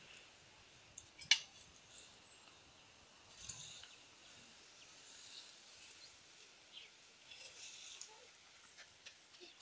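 Quiet outdoor ambience with a faint high hiss, a few soft rustles and one sharp click about a second in.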